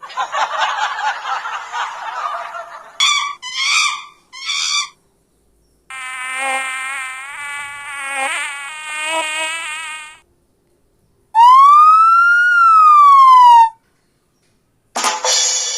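A run of separate short sound effects: an insect-like buzz for about three seconds, three short bursts, a wavering pitched sound for about four seconds, then a loud single tone that rises and falls in pitch once. Another effect starts near the end.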